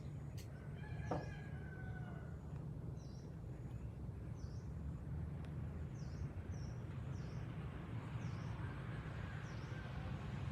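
Outdoor ambience: a short animal call about a second in, and small high chirps repeating about once a second, over a steady low hum.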